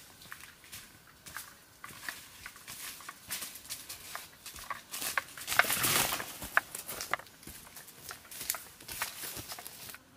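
Footsteps crunching and crackling on dry leaf litter, growing louder as the walker approaches, loudest about six seconds in as she passes close by, then fading away.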